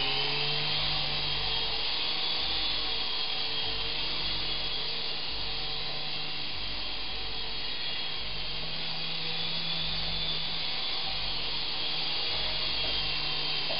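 Syma S108G mini RC helicopter in flight: its small electric motors and counter-rotating coaxial rotors whirring steadily, a drill-like whine that holds an even pitch and level.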